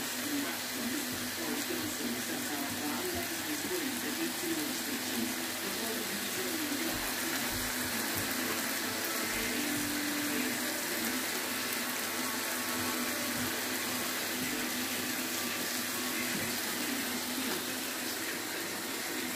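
Chicken, onion, carrot and pepper stir-fry sizzling in a frying pan: a steady, even hiss.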